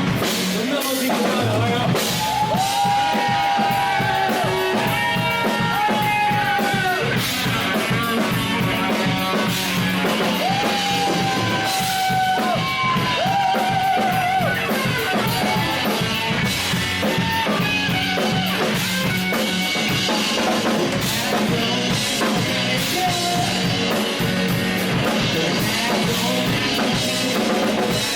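Live band playing rock music with a drum kit and guitar. Long held melody notes carry through the first half.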